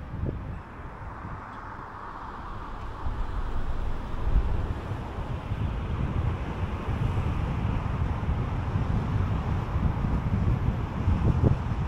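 Car driving on the road: a steady low rumble of tyres and engine with some wind noise, getting a little louder about three seconds in.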